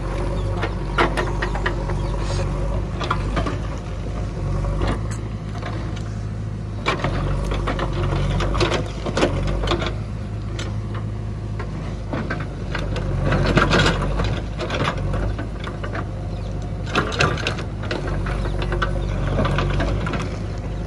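JCB 3DX backhoe loader's diesel engine running steadily while the rear bucket digs, with repeated clanks and scrapes of the bucket against rock and stones. The knocks come thickest about two-thirds of the way through.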